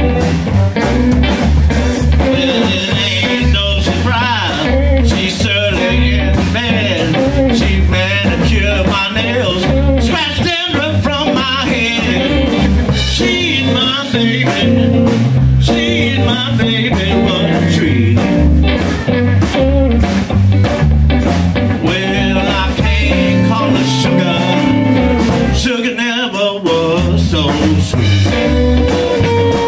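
Live electric blues band playing an instrumental break: electric guitars, bass and drum kit keeping a steady beat, with an amplified harmonica blown into a cupped microphone and horn lines from trombone and saxophone.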